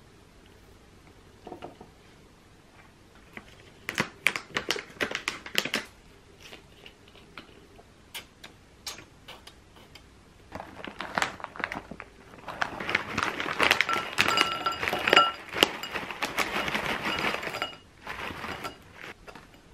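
A wooden stick tapping and scraping thick yogurt into a cut-glass bowl, a scattered run of clicks. Then granola is poured from a plastic pouch into the bowl, a dense rattle with crinkling for about five seconds, with the glass ringing faintly.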